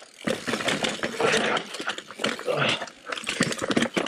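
Mountain bike rolling fast down a rocky dirt trail: tyres rumbling over rock and dirt, and the bike clattering with many irregular knocks as it hits rocks and ledges.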